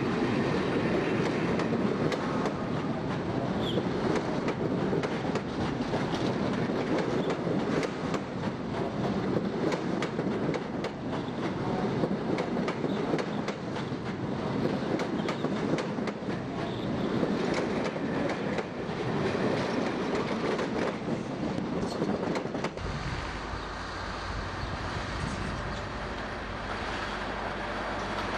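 British Rail InterCity passenger coaches rolling along the track at a platform: a steady rattle of wheels on rail with scattered clicks. About 23 seconds in, the sound changes abruptly to a deeper, quieter rumble.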